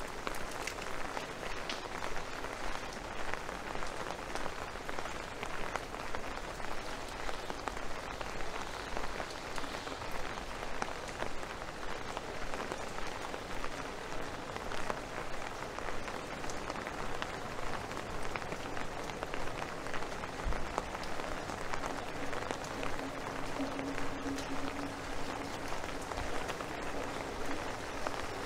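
Steady rain pattering on an umbrella: a dense, even crackle of drops that holds steady throughout.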